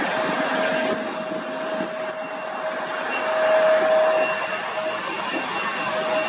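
Jet airliner engines running, a steady rushing noise with a high steady whine on top, swelling a little midway.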